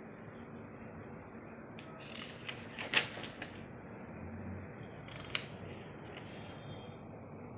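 Paper pages of a spiral-bound file being turned by hand: rustling, with a sharp crackle of paper about three seconds in and another just past five seconds, over a steady hiss.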